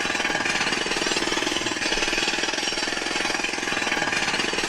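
Construction-site sound effects played through a speaker overnight: a loud, steady, rapid mechanical hammering.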